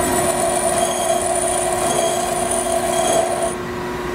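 High-speed-steel tool bit ground against the wheel of a pedestal grinder: a high-pitched grinding squeal over the grinder motor's steady hum. The squeal stops about three and a half seconds in as the bit comes off the wheel, while the grinder keeps running.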